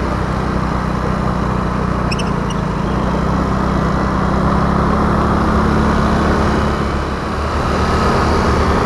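A motor scooter's small engine running steadily while the scooter is ridden, with wind and road noise over it. The engine note drops briefly near the end, then picks up again.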